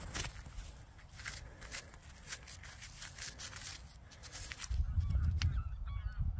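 Gloved fingers handling a small dug-up aluminium tin with soil on it, giving a string of light clicks and scrapes. About two-thirds of the way through, a low rumble comes up on the microphone, and faint wavering bird calls follow near the end.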